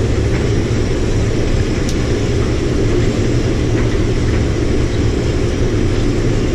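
Combine harvester running steadily while harvesting soybeans at a slow ground speed, a constant low engine and machinery drone.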